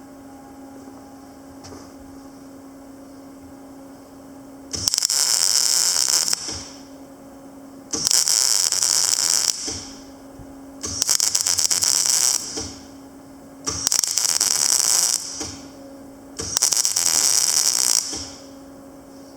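Panasonic MINI160 semi-automatic wire-feed welder striking an arc five times, each burst of harsh crackling sizzle lasting about one and a half to two seconds, as short welds are laid. A steady low hum runs between the bursts.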